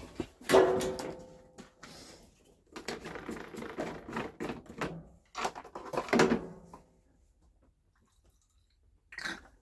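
Objects being handled in a small room: a sharp knock about half a second in, then bouts of knocking and scraping for several seconds, going nearly quiet for the last few seconds apart from one short noise near the end.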